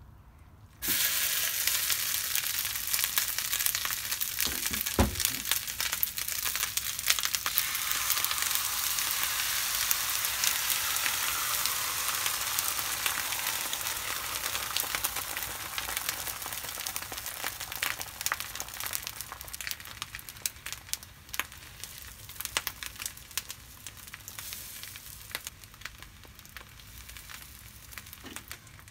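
Beaten egg and ketchup rice sizzling on a hot iron teppan plate, starting suddenly about a second in as the food hits the plate. The sizzle eases off over the last third, with scattered crackles and pops. A single dull knock sounds about five seconds in.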